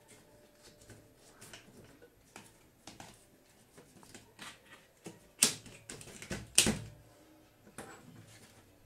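Small plastic clicks and taps of a flat ribbon cable being seated in its connector and circuit boards being handled inside an opened LCD TV, with two louder sharp knocks about five and a half and six and a half seconds in.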